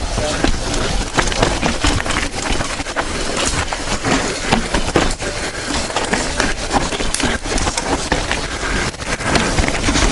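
Banshee mountain bike clattering down a rough dirt and rock trail at speed: tyres crunching over dirt and stones, with a rapid, irregular run of knocks and rattles from the bike over bumps.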